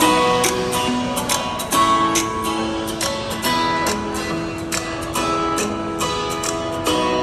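Music: plucked, strummed guitar, its notes starting a few times a second.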